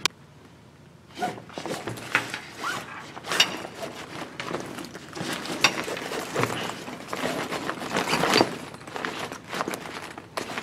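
Stiff nylon soft bag rustling and crinkling as a folded chrome microphone stand is worked into it. The stand's metal legs and fittings click and knock against each other throughout. It starts about a second in; the bag is brand-new and not yet broken in.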